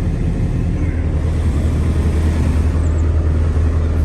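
Case CX210B crawler excavator's diesel engine idling, a steady low rumble.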